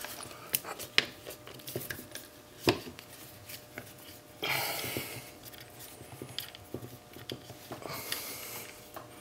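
Scattered clicks and small metal clinks of a hand screwdriver turning screws out of a metal flow-meter housing, with two brief rasping noises, one about halfway and one near the end.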